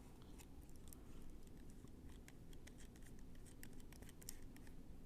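Faint scattered ticks and scraping of small plastic and metal parts being handled: a mini drill's cap being unscrewed while its shaft lock is held in.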